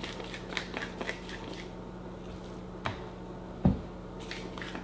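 Pepper mill grinding black peppercorns in a quick run of crunching clicks, which stops a little under two seconds in and starts again near the end. In the pause there is a single dull thump, the loudest sound here, over a steady low hum.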